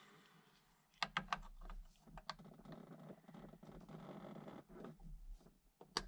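Clicks and light rattling from the horn button and centre cap as they are worked by hand into a steering wheel's hub. There is a quick run of sharp clicks about a second in and two more just after two seconds, then a couple of seconds of soft scraping and rustling.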